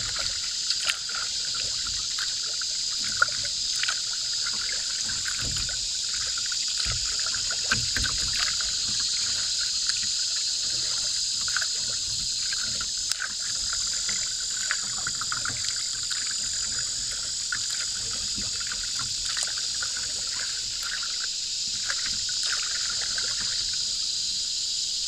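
Steady high-pitched chorus of insects, with faint water trickling and small splashes around a cedar strip canoe drifting on a fast-flowing river.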